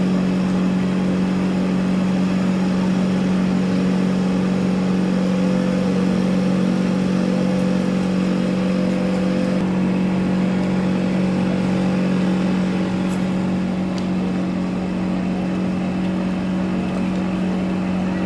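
Cotton candy machine's motor spinning the heated head, a steady hum.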